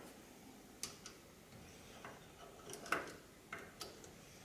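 A few light metallic clicks and ticks, scattered and irregular, as a small steel flat washer is handled and set against the aluminium transmission case as a shim for the speed sensor.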